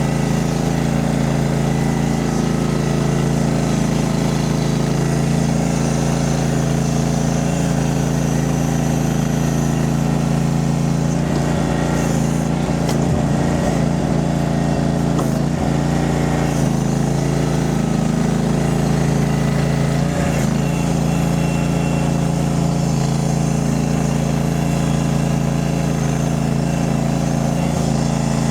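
Mini skid steer's engine running at a steady speed, with some slight wavering in the sound around the middle.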